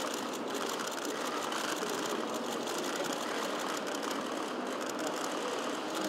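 Press camera shutters clicking in rapid runs over a steady background hubbub.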